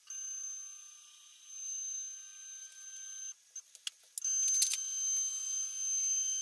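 Nema 23 stepper motors of a QueenBee Pro CNC router whining as the axes drive to their home positions: a steady high-pitched whine that stops a little past three seconds in, a few sharp clicks, then the whine again from about four seconds in.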